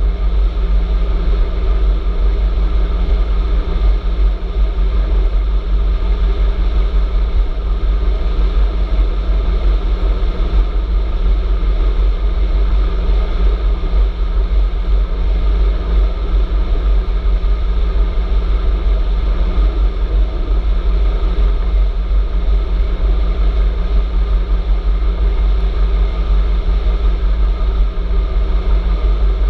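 Stromer ST2-S electric bike riding steadily along a paved highway, heard from a handlebar-mounted camera: a heavy, even rumble of wind on the microphone with a steady hum and road noise beneath.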